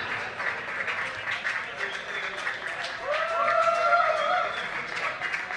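A small audience clapping and applauding at the end of a rock song. About three seconds in, one voice lets out a drawn-out whoop that rises and then holds.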